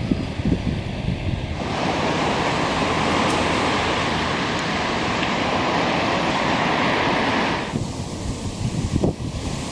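Stormy outdoor noise as a typhoon approaches: gusty wind buffeting the microphone, broken for about six seconds by a steady rushing hiss that starts and stops abruptly.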